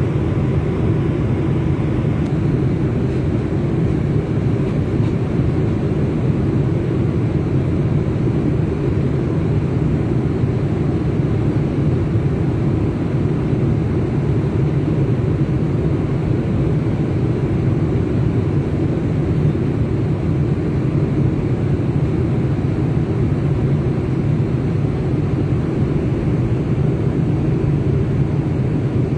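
Steady cabin noise inside an airliner in flight: an even, unbroken rush of engine and air noise, deepest and strongest in the low range.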